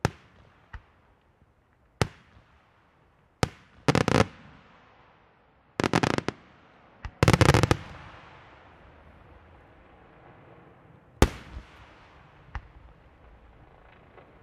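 Aerial firework shells bursting. Several single sharp bangs are followed by three clusters of rapid reports about 4, 6 and 7.5 seconds in, the last the loudest, then a fading crackle and another sharp bang a little after 11 seconds.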